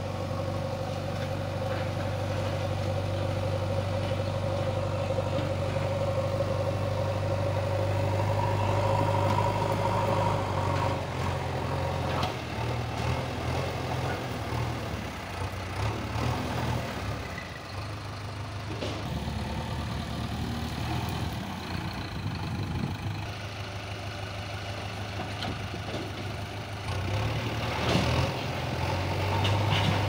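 JCB 3DX backhoe loader's diesel engine running under load as the machine pushes soil with its front bucket; the engine note holds steady, then shifts and wavers from about halfway through. A sharp knock near the end.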